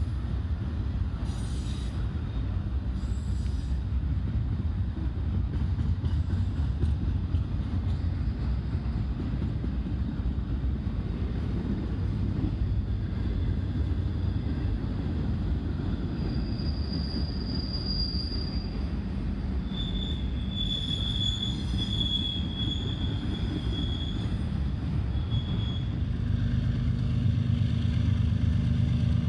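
Double-stack intermodal freight cars rolling past with a steady low rumble. About halfway through, the wheels squeal in high thin tones for several seconds. Near the end a BNSF diesel locomotive's low engine hum takes over.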